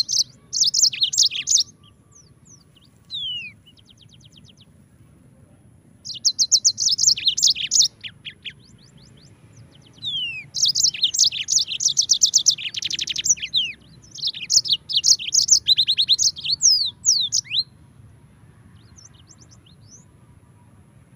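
Yellow-fronted canary (Mozambique canary) singing: several bursts of fast, high-pitched trills and chattering notes separated by short pauses. The song thins out to a few faint notes in the last few seconds.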